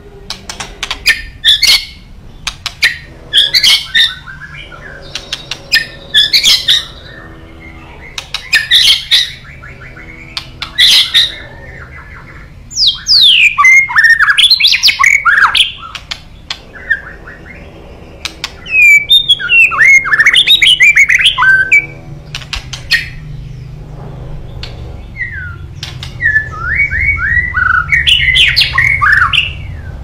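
White-rumped shama singing: short sharp calls repeated every second or two, then, from about halfway, three long runs of fast whistled notes that slide up and down.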